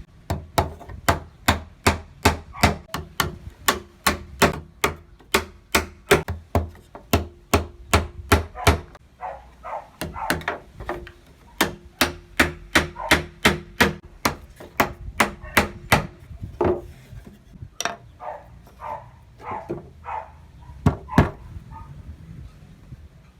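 Hammer tapping on thin wooden slats in quick runs of about three strikes a second, with a few short pauses between runs.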